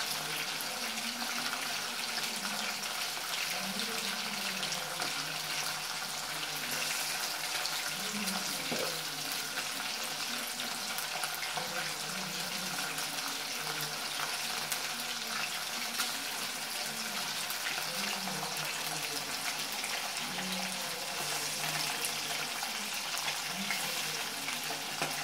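Steady sizzling hiss of cooking on a gas stove, with fish curry (kulambu) bubbling at the boil in a clay pot.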